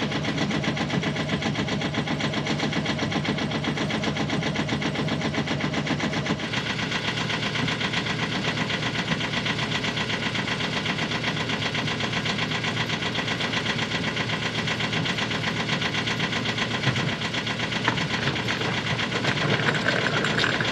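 Freshly rebuilt Yanmar small marine diesel running steadily with a fast, even clatter; its note shifts about six seconds in.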